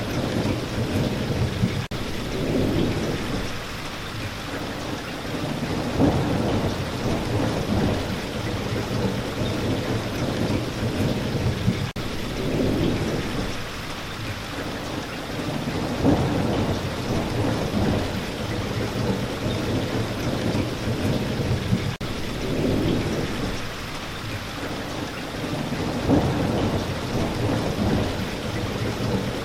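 Steady rain, with low rolling rumbles of thunder that swell and fade every few seconds. There is a brief dropout about every ten seconds.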